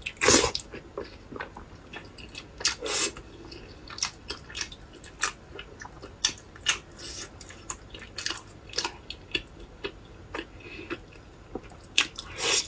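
A person biting into and chewing glazed pork knuckle, close to the microphone: a steady run of short, irregular mouth clicks and smacks, with a few louder bites about a third of a second in, about three seconds in and near the end.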